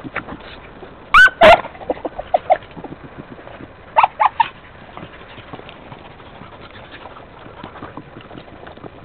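Beagle giving voice while working scrub to flush game: two loud, bending yelps about a second in and three quick barks around four seconds in. Faint rustling and steps on stony ground fill the gaps.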